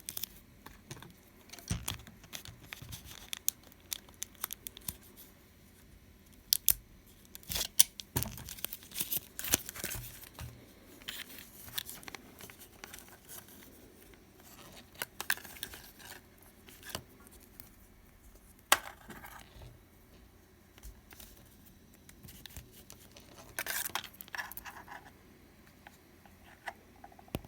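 A plastic insulation-displacement connector being crimped onto a flat ribbon cable and handled: scattered clicks, rustles and creaks, with a few sharper snaps standing out.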